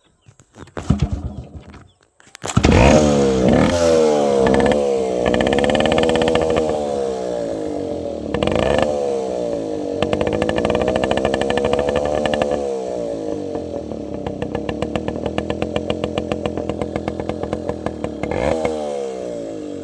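Yamaha RX 135 two-stroke motorcycle engine sputtering briefly, then catching about two and a half seconds in. It is revved up and down several times, then settles to an idle with a quick even popping, with one more blip of the throttle near the end.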